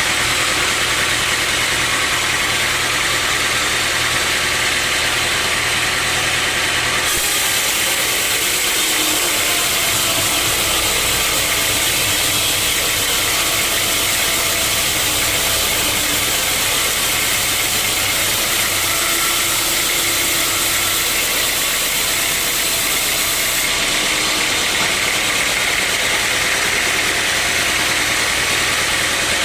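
Sawmill saw and its drive motor running steadily. From about a quarter of the way in until near the end, a brighter, higher hissing noise joins in, as the blade cuts through a teak log.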